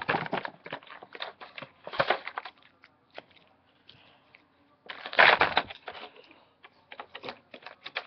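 Packaging being handled and opened to free a toy figure: rapid crackling and clicking, a short lull, then a louder burst of crinkling about five seconds in, followed by scattered clicks.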